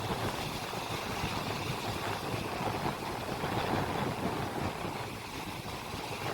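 A boat's engine running steadily, mixed with wind and water noise.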